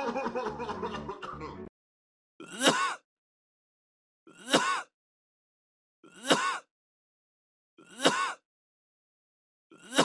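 Rapid coughing, one burst running into the next, which breaks off about two seconds in; then single short coughs at regular intervals, one about every two seconds, five in all: the pattern of a 'minute-gun' cough, as opposed to the rapid 'machine-gun' cough before it.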